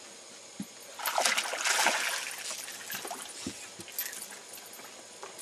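A small walleye splashing at the surface as it is scooped into a landing net, loudest for about a second and a half starting a second in, then water trickling off the net, with a few soft thumps.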